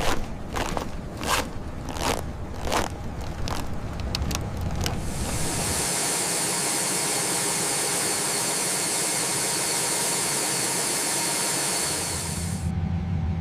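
A run of sharp clicks and knocks over a low rumble. About five seconds in, a steady loud hiss starts and runs until it cuts off abruptly near the end, leaving a low hum.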